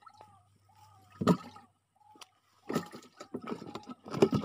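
Water splashing and sloshing in short bursts three times among swamp grass, with a faint short chirping call repeating about twice a second behind it.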